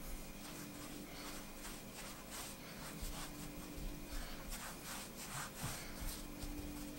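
Hands rolling yeast dough into a rope on a floured work surface: soft, repeated rubbing strokes of palms and fingers over the dough and flour.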